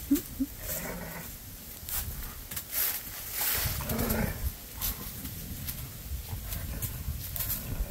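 Greyhounds play-growling as they wrestle, with two short yelps right at the start and low growls about a second in and again around the four-second mark. Paws scuffle in dry leaves throughout.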